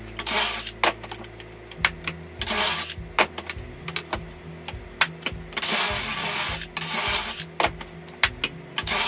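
Cordless drill boring pocket holes with a stepped bit through a pine board clamped in a pocket-hole jig, in several short bursts of about half a second to a second, each with a high motor whine. Sharp clicks and knocks come between the bursts as the board and jig are handled.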